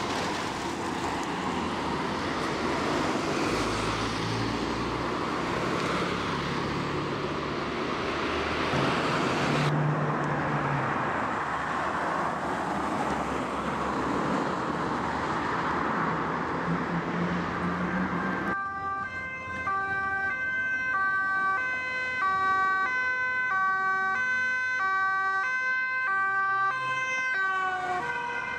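Street traffic noise, then, about two-thirds of the way in, a Dutch police car's two-tone siren alternating steadily between a high and a low pitch.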